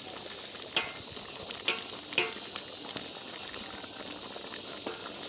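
Tamarind sauce with balut simmering in a large pan over low heat, a steady hiss while the sugary sauce reduces, with a few short clicks in the first half.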